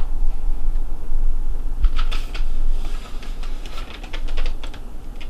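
Paper rustling and crinkling as sheets are pulled out of a cardboard box packed with paper: a cluster of quick, sharp crackles from about two seconds in until nearly five seconds, over a steady low hum.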